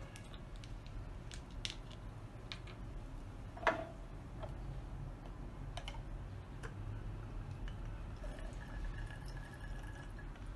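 Faint scattered clicks and ticks as alcohol is squeezed from a plastic squeeze bottle into a glass graduated cylinder, with one sharper click a little under four seconds in.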